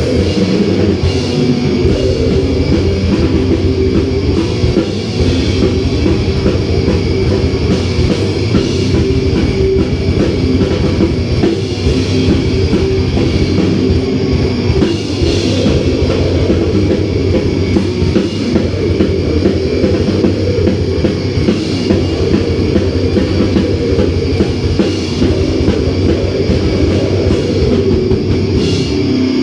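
Heavy metal band playing live: guitars over a drum kit, loud and continuous.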